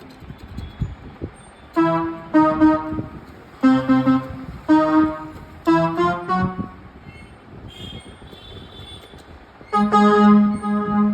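Casio CTK-6300 electronic keyboard played: a run of separate single notes in a rich, organ-like voice with soft knocks between them. After a quieter stretch, a loud chord is held near the end.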